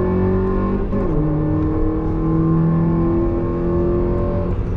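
Mazda NB Roadster's four-cylinder engine pulling hard on track, heard from inside the cabin. Its pitch dips briefly about a second in, then climbs slowly, and the steady tone breaks up into a rougher noise near the end.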